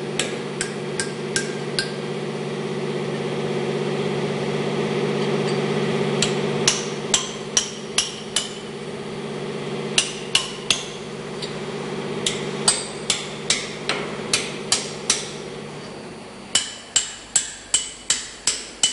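Hammer tapping a chisel to bend out the locking disc (tab washer) on the lock nuts of a chain tightener bolt: sharp metallic taps in quick runs of several, about four a second in the last run.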